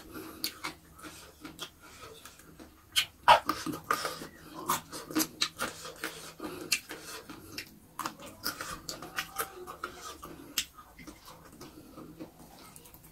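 A person eating with his hands: irregular wet mouth clicks and lip smacks from chewing.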